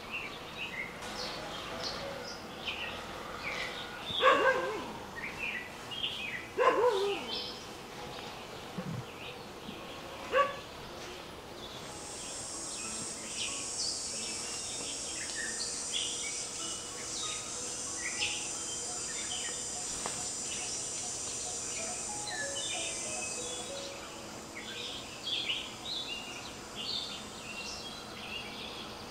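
Many small birds chirping, with an insect's steady high buzz from about twelve to twenty-four seconds in. A few sharp knocks in the first ten seconds, the loudest about four and seven seconds in.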